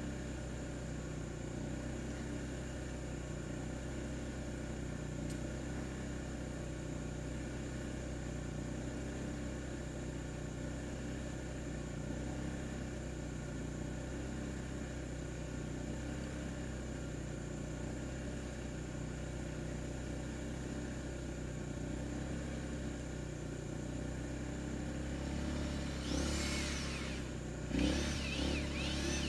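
Steady low mechanical hum, with a few brief high sounds that rise and fall near the end.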